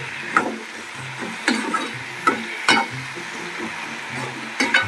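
Metal slotted spatula scraping and knocking against a metal pan while stirring termite-mound mushrooms frying in oil, over a steady sizzle. There are about five scrapes at uneven intervals.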